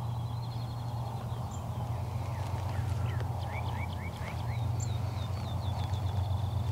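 Wild songbirds singing: a rapid high trill of repeated notes, heard twice, and a short run of five or so rising chirps about three seconds in, over a steady low hum.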